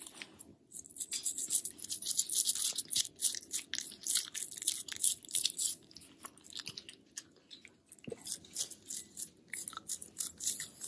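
A dog toothbrush's bristles scrubbing a Cavalier King Charles spaniel's teeth in quick, scratchy back-and-forth strokes. The strokes pause briefly about a second in and ease off for a couple of seconds past the middle.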